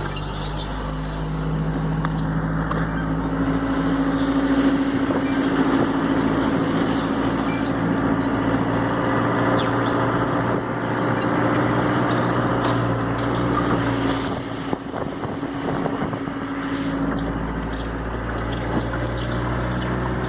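A motor vehicle's engine running steadily, with a constant hiss beneath it.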